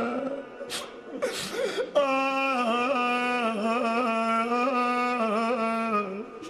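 A man singing a Shia mourning elegy (mersiye) without words, in long, wavering melismatic notes with ornamental turns. The voice breaks off briefly about a second in, then holds a long ornamented note that dips and fades near the end.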